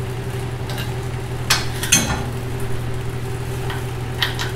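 Steady hum of the shop heater, with a handful of sharp metal clinks as the bolt of a Farmall 504's swinging drawbar is worked loose by hand.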